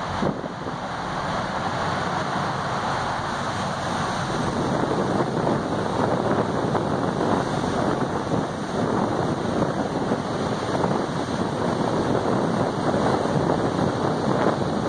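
Churning wake and spray thrown up behind a Littoral Combat Ship's waterjets at full power, around 40 knots, with wind buffeting the microphone. It is a steady, loud rush that grows a little fuller about four seconds in.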